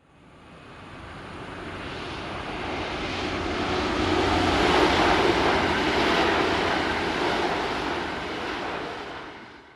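A passing vehicle: a broad rushing noise that swells for about five seconds, then fades away, cut off abruptly at both ends.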